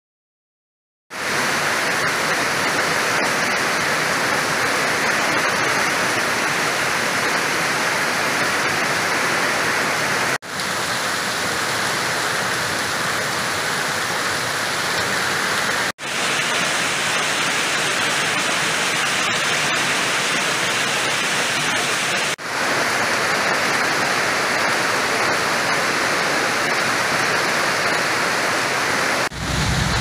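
Heavy rain pouring down steadily, with runoff streaming off a roof edge, starting about a second in. The steady rush breaks off briefly four times where one shot of the downpour gives way to the next.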